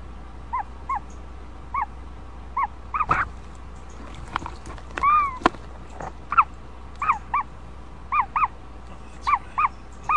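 Ostrich chick calling from inside its pipped egg: short chirps, mostly in quick pairs, with one longer call about halfway through. A few sharp clicks and a low steady hum sit under the calls.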